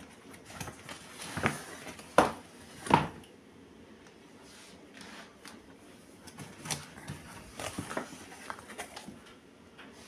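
Handling noise: a few sharp knocks and rustles, the loudest about two and three seconds in, then lighter taps near the end.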